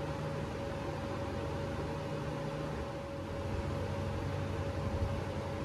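A steady mechanical hum over a hiss, with a constant mid-pitched tone, like a running fan or air-conditioning unit. There is one light knock about five seconds in.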